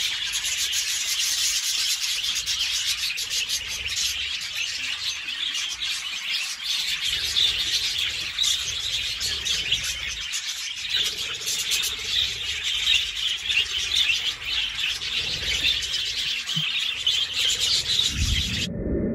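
A large flock of budgerigars chattering all at once: a dense, continuous warble of overlapping chirps and scratchy notes, cutting off suddenly just before the end.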